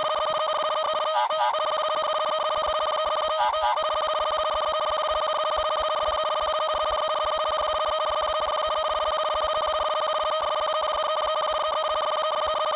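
A continuous, steady, fluttering ringing tone like an electronic telephone ringer, with two short breaks in its pattern in the first four seconds.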